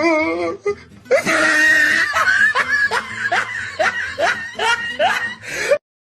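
Hearty human laughter in a steady run of rhythmic bursts, starting about a second in and cutting off abruptly near the end.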